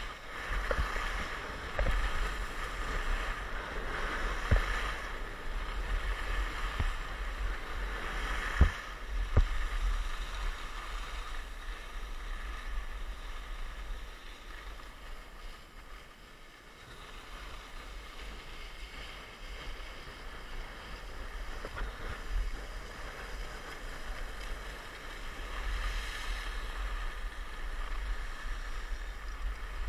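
Skis hissing and scraping over packed snow while wind buffets the camera microphone with a low rumble, with a few sharp knocks about nine seconds in. The sound drops for several seconds in the middle, then picks up again.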